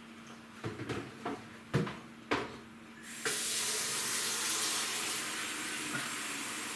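A few short knocks as a plastic bucket is handled at the kitchen sink, then a kitchen tap starts running steadily into the sink about three seconds in.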